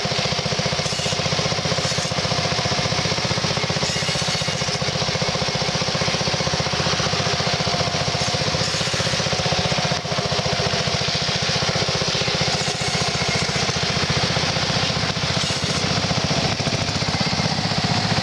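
Unihorse 6-8 garden tractor's engine running steadily with a fast, even firing beat, under load while pulling a plough.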